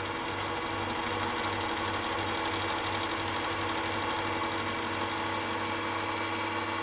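Milling machine cutting a carburettor flange with a 12 mm end mill: steady spindle whine and cutting noise, holding an even pitch, then cutting off suddenly at the end.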